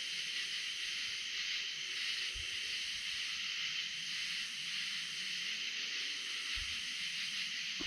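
Steady chorus of night insects: a dense high hiss, with a higher layer that swells and fades about every two seconds.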